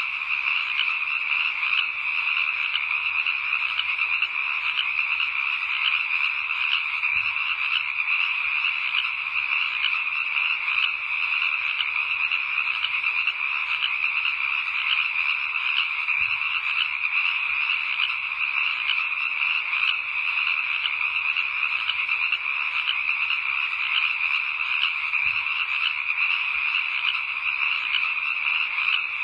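A chorus of many frogs calling together: a dense, steady trill of rapid pulses that never lets up.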